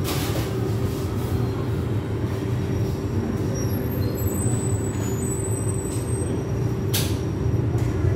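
A steady low mechanical rumble with a constant hum, and a single sharp click about seven seconds in.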